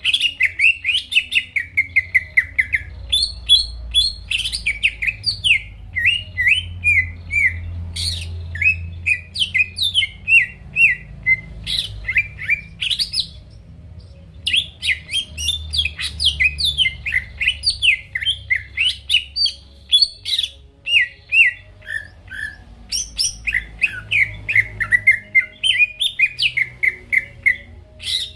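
Cucak ijo (green leafbird) singing in full, non-stop song: rapid runs of varied sweeping chirps and whistles, several notes a second, with a brief pause about halfway through.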